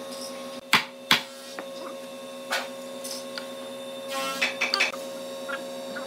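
Sharp knocks on heavy hardwood pieces being fitted together into a joint: two loud knocks about a second in, a softer one a little later, and a quick run of lighter knocks near the end. A steady electrical hum runs underneath.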